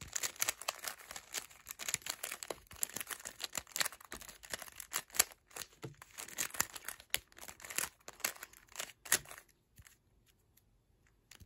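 GAN 356 Air 3x3 speed cube being turned quickly by hand: a dense run of rapid plastic clicks and clatter from the layers, which stops about two seconds before the end.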